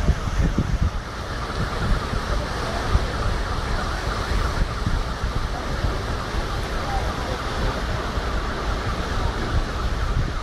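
Steady rush of fast-flowing floodwater pouring through a city street, with wind buffeting the microphone.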